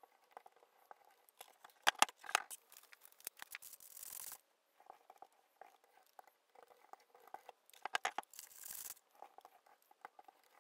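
Small paint roller rolling wet paint onto wooden chair legs: a faint sticky crackling with scattered clicks, and two longer hissing passes about four and eight seconds in.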